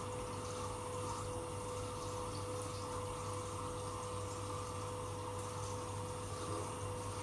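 Hot spring water pouring steadily from a stone spout into a stone onsen tub, with a steady hum beneath it.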